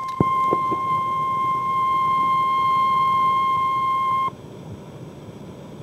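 NOAA Weather Radio warning alarm tone: one steady high beep, the alert that precedes a tornado watch broadcast, which cuts off suddenly about four seconds in, leaving radio static hiss.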